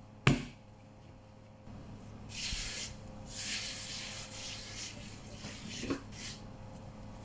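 Hands rubbing and sweeping across a floured work mat, spreading the flour, in several dry swishing strokes. A single sharp knock comes about a quarter second in.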